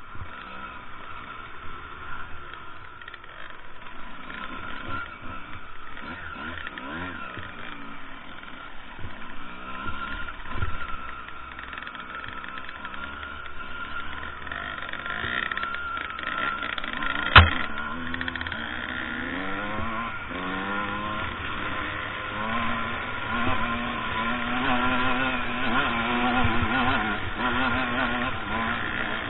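Two-stroke enduro dirt bike engine being ridden on trail, its revs rising and falling over and over. A single sharp knock about seventeen seconds in.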